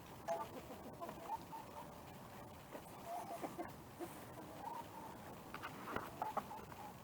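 Chickens clucking: many short, low calls scattered throughout, with a few small clicks.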